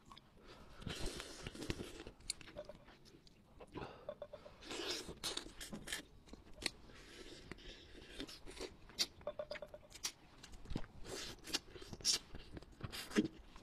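Close-up eating of a braised rabbit head: meat being torn apart and chewed, with wet mouth sounds and many small irregular crunches and clicks.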